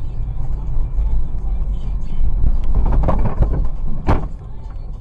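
Car driving on a snowy road with a heavy low rumble, then a rough grinding noise about three seconds in and a single sharp bang a little after four seconds as it collides with another car.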